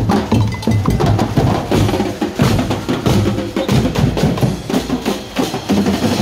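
Street-parade drumming by a Dinagyang festival tribe's percussion band: many drums beaten together in a loud, fast, dense rhythm with heavy low thuds.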